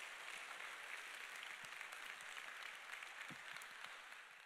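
Audience applauding: steady clapping from many hands that tails off at the very end.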